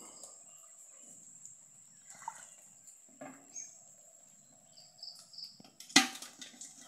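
Shallow water splashing and dripping softly as a current net is drawn out and fish are picked from it, with a single sharp knock about six seconds in.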